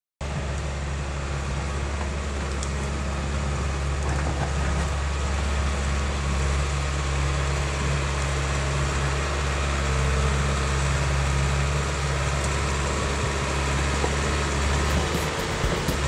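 Caterpillar D4C crawler dozer's diesel engine running steadily under load as the dozer pushes soil with its blade, with a few sharp clicks near the end.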